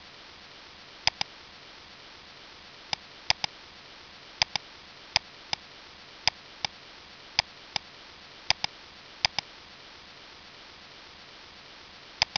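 Computer mouse clicking, often as quick double-clicks, about a dozen times, over a steady faint hiss.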